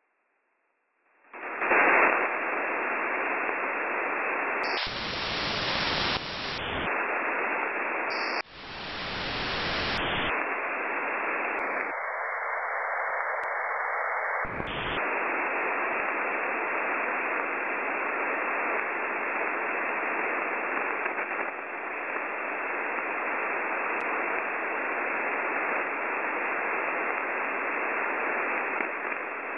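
Shortwave static from a web-based SDR receiver tuned to UVB-76's 4625 kHz channel: a steady hiss with no buzzer tone, the sign that the station is off the air. The hiss starts about a second in, and its tone shifts several times as the receiver's bandwidth is widened and narrowed.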